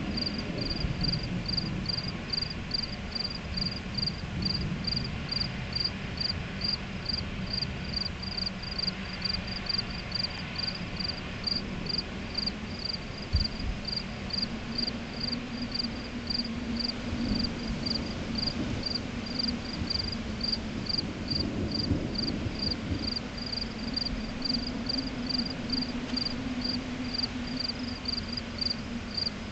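Crickets chirping steadily, about two chirps a second, over an uneven low rumble. From about halfway in, a steady low hum joins, the wind singing in overhead power lines.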